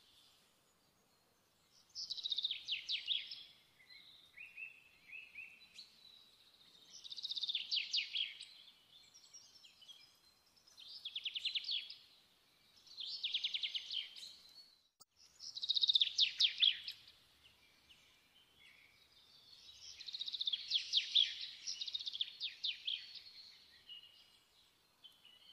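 A songbird singing: short, high, rapid trilled phrases, about six of them, each a second or two long and coming every few seconds, over faint background noise.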